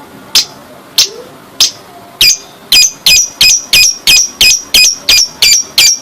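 Lovebird ngekek call: three separate shrill chirps about half a second apart, then from about two seconds in a fast, even run of repeated shrill notes, about three a second.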